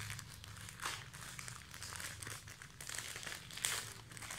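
Thin plastic courier bag crinkling and rustling as it is handled and pulled open by hand. It sounds as irregular crackles, with louder crackles about a second in and again near the end.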